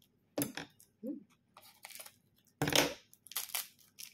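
Taped paper wrapping on a bottle-shaped package being torn and picked open by hand: irregular bursts of rustling and tearing, the loudest about three quarters of the way through.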